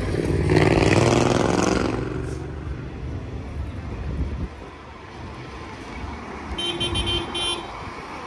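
Blackpool heritage tram going by, loudest in the first two seconds, then a short horn toot lasting about a second near the end.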